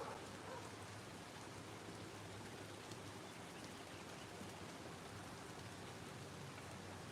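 Rain falling steadily, a soft, even patter, with a faint low hum underneath.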